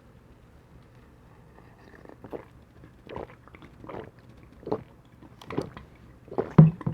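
A person gulping sikhye, a sweet rice drink, in steady swallows about one every second, starting after a couple of quiet seconds and getting louder and quicker near the end.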